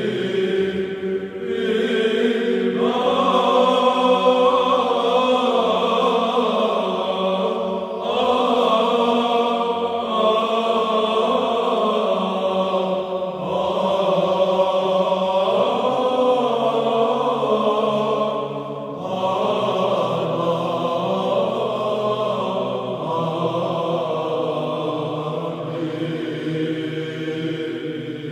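Background music: vocal chant sung in long held phrases that change every few seconds.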